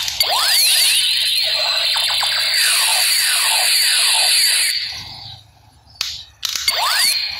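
Electronic sound effect from a battery-powered toy gun: a quick run of falling whistle tones over a high buzzing hiss. It stops about five seconds in, then comes a click and a short second burst near the end.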